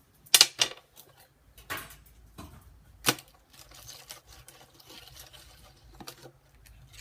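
A fidget spinner striking a phone's screen: a few sharp knocks, the loudest a double knock about half a second in, then single knocks near two, three and six seconds, with faint wet handling between them.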